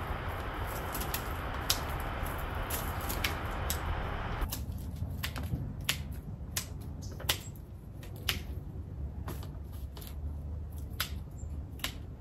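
Dry plant stems and leaves snapping and crackling as they are pulled and broken by gloved hands: an irregular scatter of sharp clicks. A steady hiss underneath stops suddenly about four and a half seconds in.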